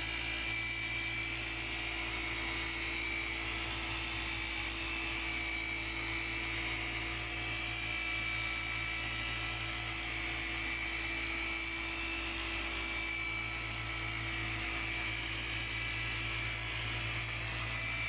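Machine polisher running steadily with a microfiber cutting pad on windscreen glass: a constant motor hum with a high whine over it.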